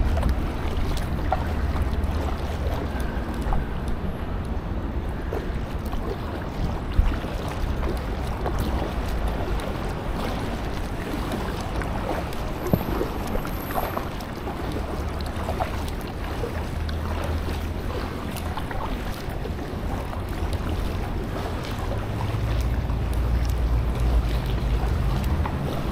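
Water splashing and dripping around a small packraft as it is paddled, with wind rumbling on the microphone, stronger near the start and again near the end.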